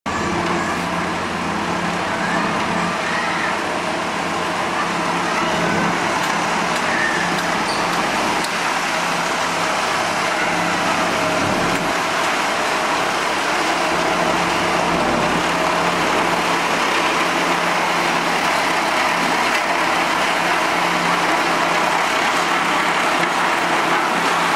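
Engines of heavy road-construction machinery running steadily.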